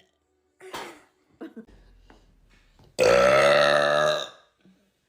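A woman's long, loud burp about three seconds in, lasting over a second, deep and pitched with a slight downward slide. It follows a brief faint sound near the start.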